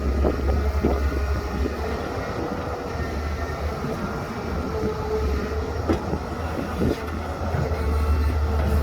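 Heavy diesel earthmoving machinery running steadily: a deep, constant engine drone with a faint steady whine above it and a few light knocks.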